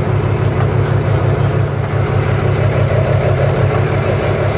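Charter fishing boat's engine running with a steady low drone.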